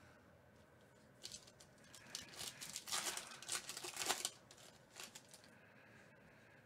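Foil wrapper of a Topps baseball card pack crinkling and tearing open by hand: a run of crackly rustles, loudest about three to four seconds in.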